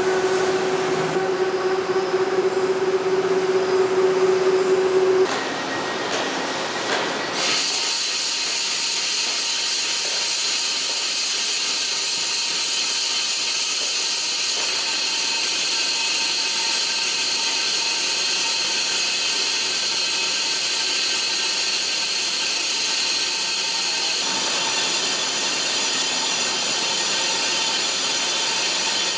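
Hwacheon VT-650 vertical CNC turning center machining a cast iron drum. A steady machine hum in the first five seconds gives way, about seven seconds in, to the steady high-pitched hiss of the carbide insert turning the cast iron at high cutting speed.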